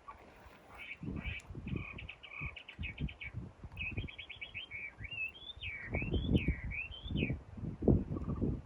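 A songbird singing: quick trills for the first few seconds, then a run of rising-and-falling whistled notes, over irregular low thuds and rustling.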